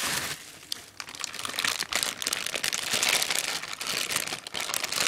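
Plastic packaging crinkling and rustling as figure parts are unwrapped by hand, with many small clicks and crackles; it eases off briefly about half a second in, then picks up again.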